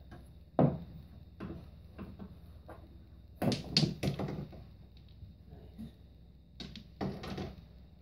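Pool balls and cue clacking and knocking on a small pool table. One sharp click comes about half a second in, then a few lighter ticks, and two quick clusters of knocks come in the middle and near the end.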